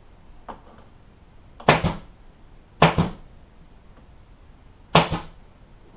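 Upholstery staple gun fired three times, each shot a sharp double crack, about a second and then two seconds apart, tacking vinyl upholstery down on a boat sundeck frame.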